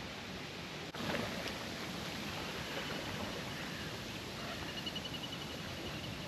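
Outdoor ambience beside a pond: a steady hiss that steps up abruptly about a second in, with faint bird calls and a short rapid trill near the end.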